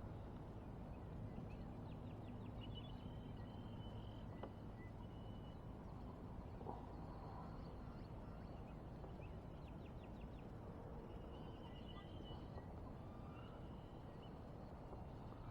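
Faint birdsong: short rapid trills and chirps repeating every few seconds over low, steady background noise.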